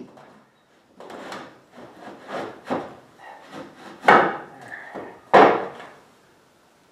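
Knocks and scrapes of the Rotax 582 engine and its mount hardware being shifted and worked into place by hand: a run of short scraping knocks, with two loud knocks a little over a second apart past the middle.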